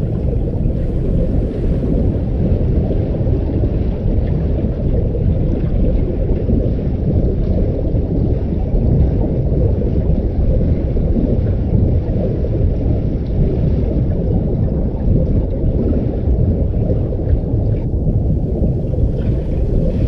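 Underwater ambience as heard when submerged: a steady, muffled low rumble of water with little high-frequency content.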